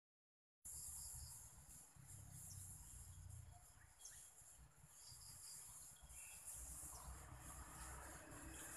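Near silence: a faint outdoor background with a steady high-pitched hiss over a low rumble, starting about half a second in.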